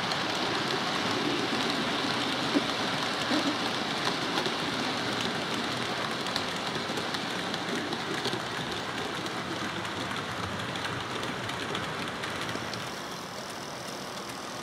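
OO-scale model freight train rolling past on the layout's track: a steady rushing rattle of many model wagon wheels on the rails, with small clicks running through it, easing a little near the end.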